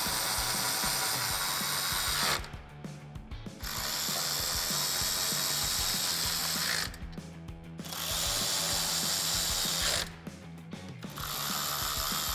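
Cordless electric ratchet with a 10 mm socket running in four bursts of two to three seconds each, with short pauses between them, as it drives in grille bolts.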